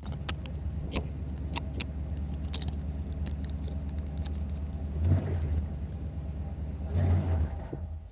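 1981 Corvette's V8 engine running steadily, with two brief swells in level about five and seven seconds in as throttle is given, and scattered light clicks over it.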